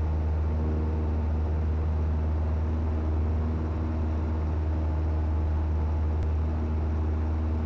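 Cessna 172N's four-cylinder piston engine and propeller running steadily at climb power, heard as a constant low drone inside the cabin.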